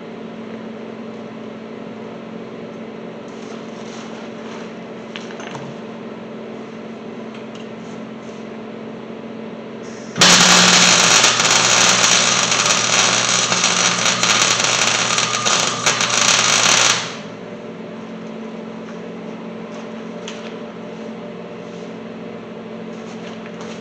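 Wire-feed welder welding steel, a loud, steady crackle that starts abruptly about ten seconds in and stops about seven seconds later. A steady low hum runs before and after.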